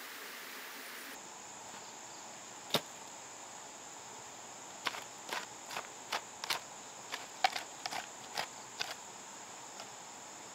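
Short-handled hoe chopping into loose soil: one strike, then a quick, irregular run of about a dozen strikes as a planting hole is dug. A steady high drone of crickets runs underneath.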